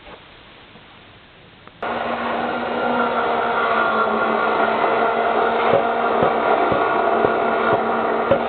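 Electric power tool motor switching on suddenly about two seconds in and running steadily with a hum and whine, a few light knocks over it; the hum stops near the end.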